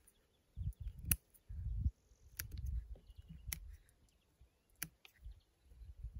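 Small hand scissors snipping the thin side shoots of a young olive cutting: a few sharp clicks about a second apart, with patches of low rumbling noise in between.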